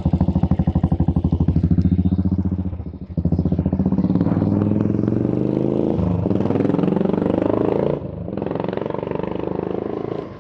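Royal Enfield single-cylinder engine through a Way2Speed Cobra aftermarket silencer: steady, evenly spaced thumping at idle for about three seconds, then the bike pulls away with the pitch rising as it accelerates. The sound dips about eight seconds in and then runs quieter as the bike rides off.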